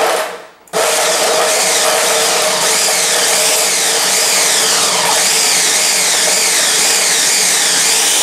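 Ninja Mega Kitchen System 1500-watt blender kicking on suddenly about a second in on the pulse setting and running steadily, chopping up carrots, spinach and ice cubes.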